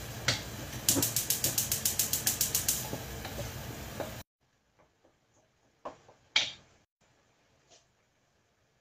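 A wooden spoon stirring thick tomato curry base in a pot on a gas hob, over steady background noise, with a fast, regular run of sharp clicks for about two seconds. Just after four seconds the sound drops suddenly to near silence, broken by a few single knocks.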